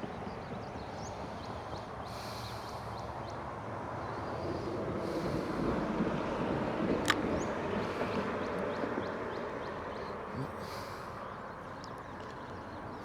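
Road traffic beside the creek: a vehicle passing, its sound swelling to a peak around the middle and fading away, with a single sharp click about seven seconds in.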